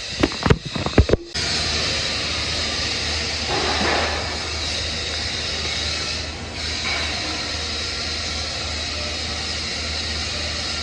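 Welding arc on steel pipe: a few sharp crackling clicks as the arc starts, then a steady hiss over a constant low hum as it burns.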